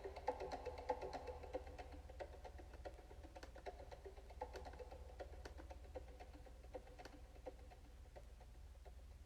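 Soft music generated from a heartbeat by a Sound of Soul device, with wood-block-like clicks over a held tone, fading out and dying away near the end.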